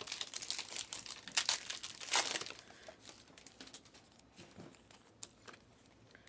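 Plastic trading-card packaging crinkling and tearing as a card pack is opened, with a couple of sharper rips about one and a half and two seconds in, then dying down to faint handling of the cards.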